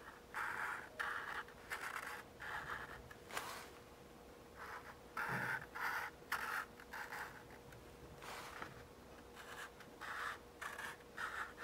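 Black felt-tip marker drawing on a paper plate: a series of short scratchy strokes, each under half a second, with pauses between them as the square-tooth outline is drawn line by line.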